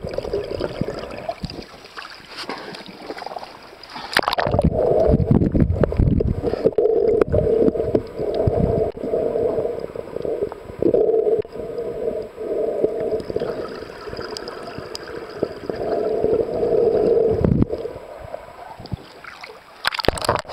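Muffled underwater noise picked up by a camera in a waterproof housing during a freedive: water rushing around the housing, with a wavering hum that swells and fades about once a second and louder surges about four seconds in and near the end.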